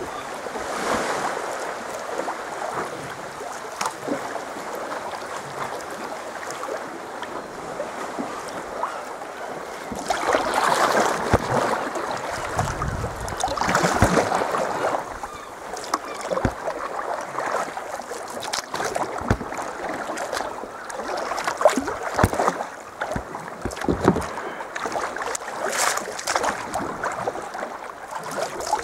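Water splashing and lapping around a sea kayak as it is paddled, with a few louder surges of splashing and small sharp drips and knocks.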